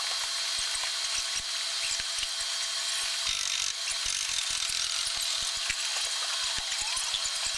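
Aircraft assembly hall noise: a steady hiss and hum with many scattered clicks and taps of hand tools being worked on fittings, and a brief low rumble about three and a half seconds in.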